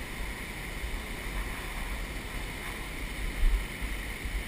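Steady rushing background noise in a cave passage, with low rumbling from the camera being handled and a short bump about three and a half seconds in.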